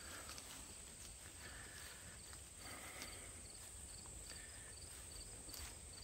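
Faint insects chirping in the trailside grass: short high chirps repeating about twice a second over a steady high-pitched drone. Soft footsteps on grass can be heard underneath.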